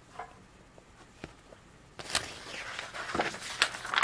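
A hardcover picture book being handled: a few faint ticks, then from about halfway a run of papery rustles and light knocks as the book is moved and its page is turned.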